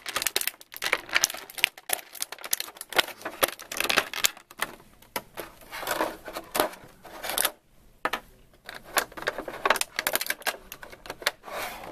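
Clear plastic packaging crinkling and clicking as an action figure is pulled out of its plastic bag and tray: a dense run of irregular clicks and crackles.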